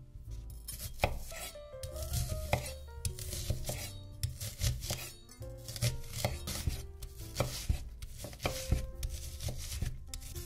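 Knife chopping vegetables, a series of irregular sharp strikes. Soft background music with a simple melody plays underneath.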